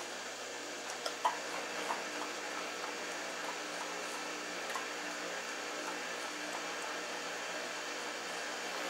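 Shar-Pei puppy chewing raw chicken rib bones, with a handful of sharp crunches of bone, most in the first two seconds, over a steady background hum.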